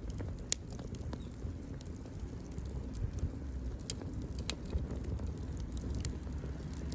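Wood campfire crackling, with scattered sharp pops at irregular moments over a steady low rumble.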